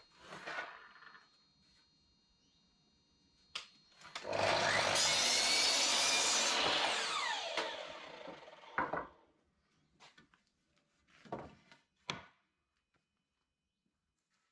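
A power tool cutting into wood for about three seconds, then winding down. A sharp click comes just before it and several knocks follow.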